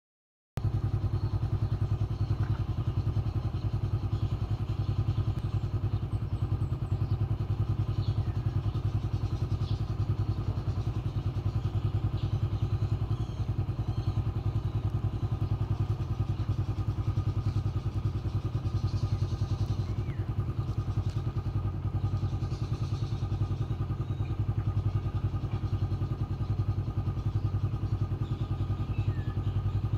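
An engine running steadily at idle close by: a low, fast, even throb that holds the same pitch and level throughout.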